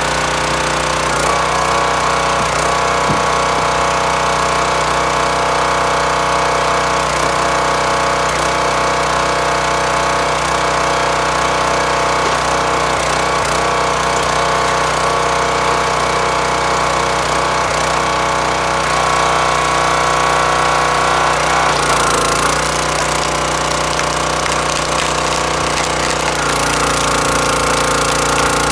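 Small gas engine of a hydraulic log splitter running steadily throughout. Its note shifts about two-thirds of the way through and again near the end, as the ram is worked.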